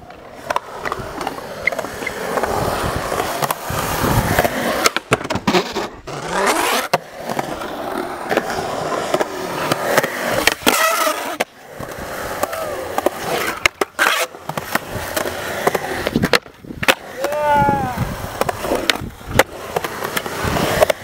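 Skateboard wheels rolling over concrete skatepark ramps, with several sharp knocks of the board spread through.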